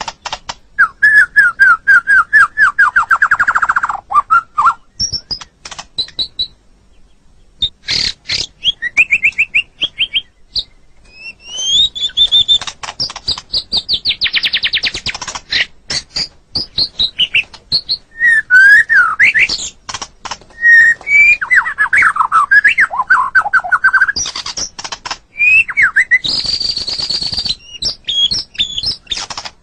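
White-rumped shama (murai batu) singing loudly in varied phrases: quick runs of repeated notes, slurred whistles and fast high trills, with short pauses between phrases.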